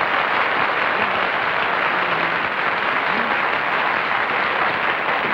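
Studio audience applauding steadily, heard on a muffled, narrow-band old television soundtrack.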